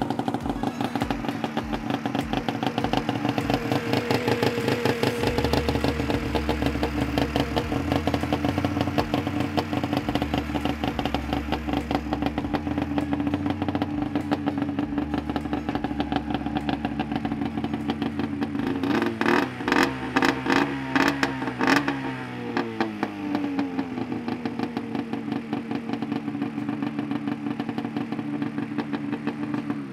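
Arctic Cat M8 snowmobile's 800 cc two-stroke twin running steadily, going again after water was cleared out of the swamped engine. About two-thirds of the way through it is revved in a few quick blips, the pitch then falling back to a steady run.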